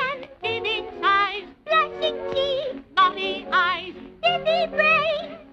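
High-pitched cartoon voices singing a melody with heavy vibrato over orchestral accompaniment, in short phrases with brief breaks between them.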